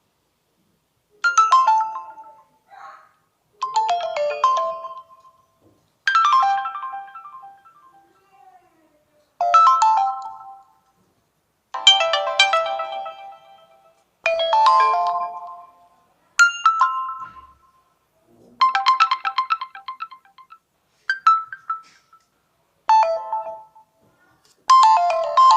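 Nokia Lumia 925 alert tones played one after another: about eleven short chimes, each a quick cluster of bright notes that dies away within a second or two, with brief silences between them.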